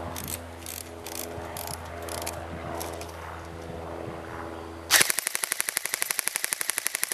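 Crosman Pulse R-76 AK74-style airsoft rifle: a couple of clicks and quiet handling, then about five seconds in a rapid full-auto burst of evenly spaced shots that is still going at the end.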